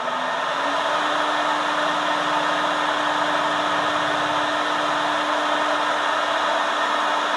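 CNC wood router's electric spindle finishing its spin-up: its hum climbs in pitch for the first half-second or so, then holds steady at running speed under a loud, even rushing noise as the machine starts its level-check pass over the wood.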